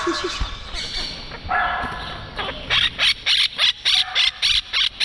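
Quaker parrot (monk parakeet) squawking in a rapid, even string of loud harsh calls, about four a second, starting about two and a half seconds in. Softer bird calls come before it.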